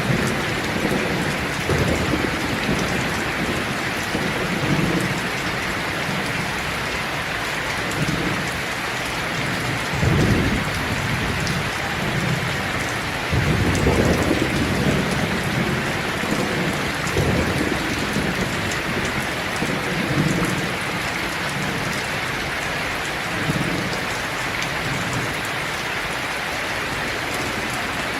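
Steady rain falling, with low rolls of thunder rumbling under it, the loudest about ten and fourteen seconds in.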